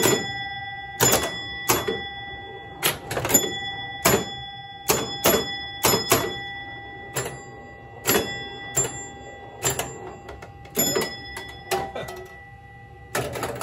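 A 1968 Williams Lady Luck electromechanical pinball machine in play: a string of sharp mechanical clacks from flippers, bumpers and score mechanism, about seventeen in all, at irregular gaps, each followed by a ringing bell-like tone. Near the end a denser rattling sets in, as the game goes to game over.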